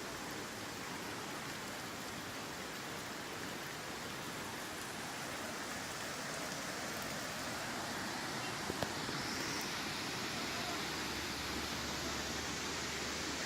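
Steady rush of water from a waterfall and its stream, an even hiss-like roar that grows a little louder partway through.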